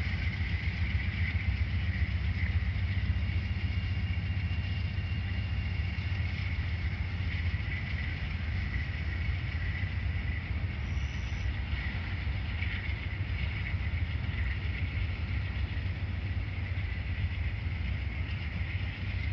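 Two diesel locomotives of a departing Amtrak passenger train running, a steady low rumble with a steady high hiss over it.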